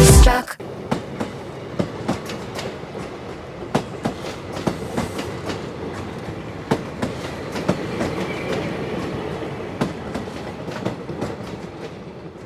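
A train running on rails: a steady rumble with the wheels clacking irregularly over rail joints, slowly fading toward the end. Background music cuts off just after the start.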